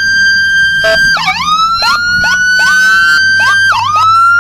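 Police siren sounding loud and close: a steady high wail that dips sharply twice, with a quick run of short falling chirps between the dips.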